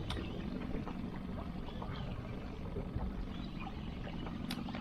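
A boat's motor running steadily at trolling speed, a low even hum. Two short sharp clicks, one at the start and one near the end.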